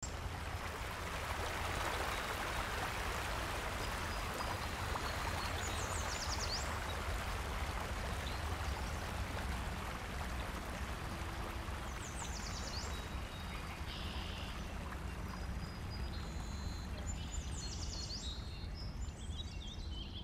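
River water rushing steadily over a weir and rapids. Birds chirp over it, with one short high song phrase coming back about every six seconds.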